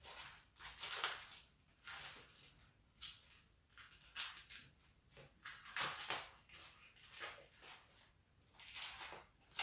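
Thin plastic takeaway food container being opened by hand: irregular crinkles and crackles as the plastic lid and wrapping are pulled and peeled apart.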